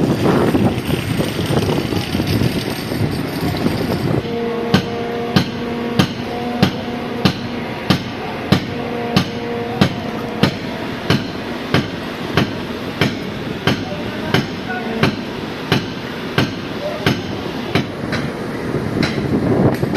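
Firefighters forcing a door, driving a pry bar with a hammer: a steady series of sharp metal strikes, about one every 0.6 s, starting about four seconds in. At first a ringing tone hangs under the blows.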